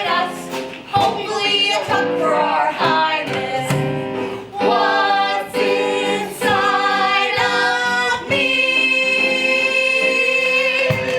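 Several voices singing the closing chorus of a comic song, ending on a long held final note from about eight seconds in.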